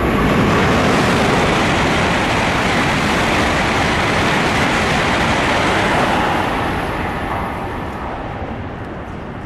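E7 series Shinkansen bullet train passing through the station at high speed: a loud, steady rush of noise that holds for about six seconds, then fades away as the train leaves.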